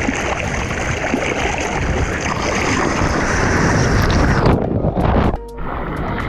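Loud, dense rushing and churning of seawater over a GoPro housing as the camera is tossed in the surf. The sound changes abruptly about four and a half seconds in and dips briefly near the end.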